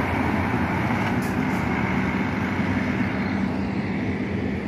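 Diesel engine of a double-decker intercity coach running as the coach drives off, a steady low drone.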